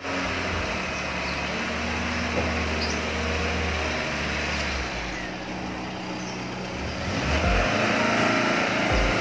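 1989 Nissan Sentra's fuel-injected four-cylinder engine running as the car pulls forward out of a carport. The engine note grows louder and changes about seven seconds in as the car moves off.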